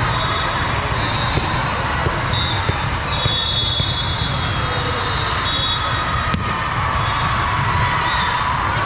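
Din of a large sports hall during a volleyball match: balls bouncing and being struck, with sharp smacks, the loudest about six seconds in, over a steady background noise of voices and play, and short high-pitched squeaks.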